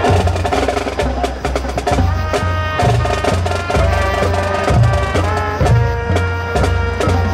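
Marching band playing: held brass and wind chords over busy drumline and front-ensemble percussion, with rapid percussion strokes throughout.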